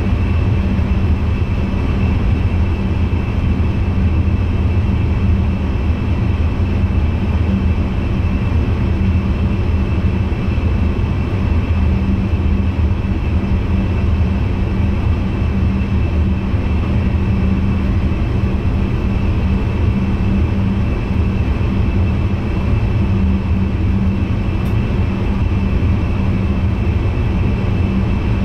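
Steady running noise inside the cab of an NS VIRM double-deck electric train under way: a constant low rumble with a steady hum and a thin high whine held over it.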